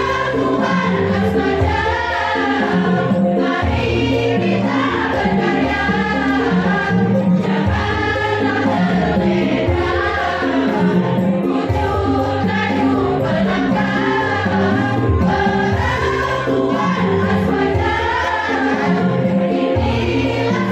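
Women's choir singing together over instrumental accompaniment, with a bass line moving in held steps beneath the voices.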